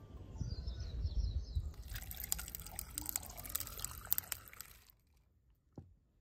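Green tea poured in a thin stream over ice cubes in a glass, splashing with many small cracks and clicks for about three seconds before stopping abruptly. Birds chirp faintly at the start, and a single soft knock comes near the end.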